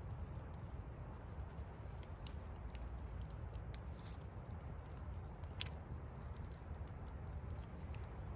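Wood fire crackling: scattered irregular pops and snaps over a steady low rumble, with one sharper pop a little past halfway.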